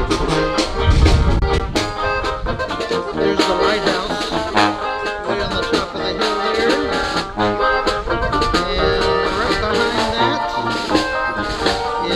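Band music with brass instruments and percussion.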